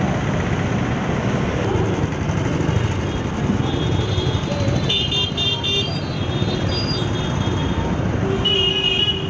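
Street traffic running steadily, with vehicle horns: a quick run of short beeps about five seconds in and a longer horn blast near the end.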